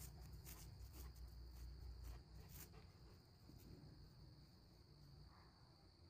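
Faint, steady high-pitched insect trill, with a low wind rumble that dies away about two seconds in and a few faint clicks.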